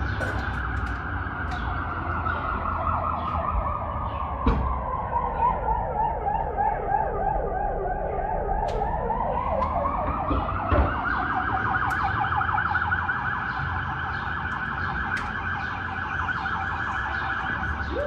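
Fire-department rescue ambulance's electronic siren sounding, its pitch sliding slowly down over several seconds and climbing back up, with a fast flutter in the tone. Street traffic rumbles beneath, and the siren cuts off at the end.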